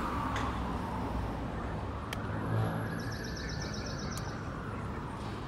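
City street traffic noise: a vehicle's tyre and engine noise fading as it passes, with a short run of rapid high chirps about three seconds in.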